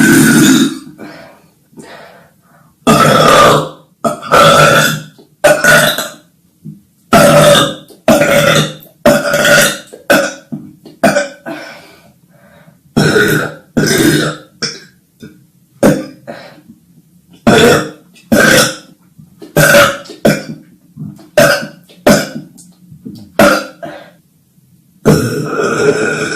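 A rapid string of loud burps from girls, more than twenty in all. Each lasts well under a second, some come in quick pairs, and a longer burp starts near the end.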